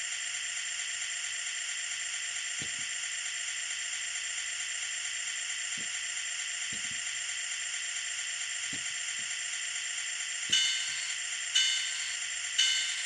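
Digital sound decoder in an N scale F3A diesel locomotive playing its prime mover idling, a steady thin sound from the model's tiny speaker, just after start-up. Three short tonal toots sound near the end.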